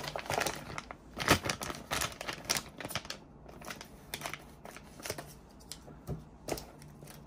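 Clear plastic bag crinkling and rustling as a cable is handled inside it, with irregular clicks and taps. The sharpest come about a second in and again about two and a half seconds in.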